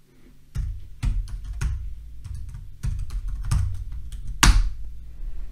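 Typing on a computer keyboard: an irregular run of keystrokes, each with a dull thud, and one louder, sharper click about four and a half seconds in.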